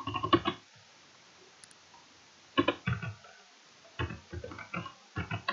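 Computer keyboard typing: several short bursts of quick key clicks with quiet gaps between them.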